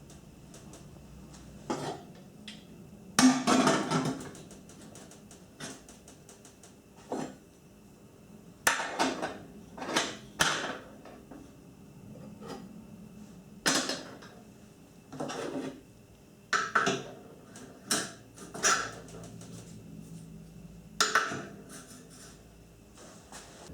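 Metal parts of a brass samovar being handled and fitted together: an irregular series of sharp metallic clinks and knocks, some ringing briefly, the loudest about three seconds in.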